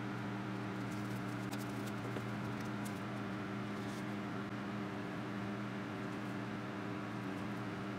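Small electric motor of a tumbler cup turner humming steadily, with a few light ticks from a spoon and glitter cup between about one and four seconds in.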